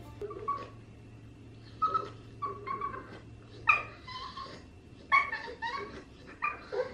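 A pug cross whining in a string of short, high whimpers, coming in little clusters. It is the anxious whining of a dog torn between a treat and its fear of the harness.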